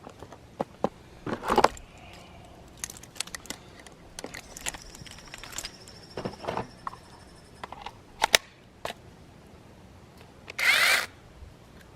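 Handling noises from gear being unpacked: scattered clicks and knocks, then one loud rasping burst lasting about half a second near the end.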